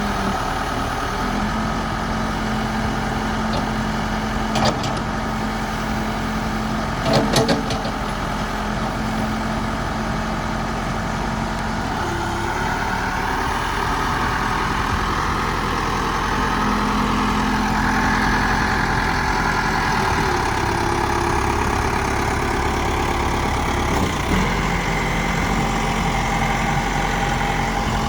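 Case 590 Super L backhoe loader's diesel engine running steadily, with a few short clanks about five and seven seconds in. The engine gets a little louder through the second half.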